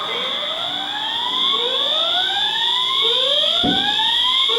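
Fire alarm voice-evacuation speaker sounding a repeating rising whoop, three sweeps about a second and a half apart, over a steady high-pitched tone. It is the evacuation signal that the recorded message calls "the signal you have just heard", reporting an emergency in the building.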